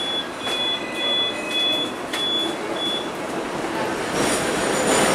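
Hong Kong double-decker electric tram running along its street track, heard from inside the upper deck. A run of about six short, evenly spaced high beeps sounds in the first three seconds. About four seconds in, the rolling noise swells and a thin, high wheel squeal comes in.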